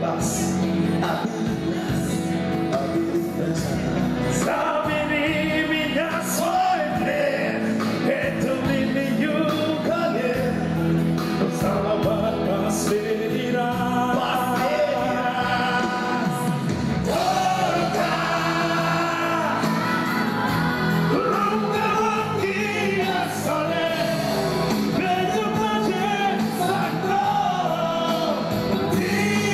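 A live band playing a slow Russian-language pop song, with a male singer's vocal over the backing music, amplified through a PA.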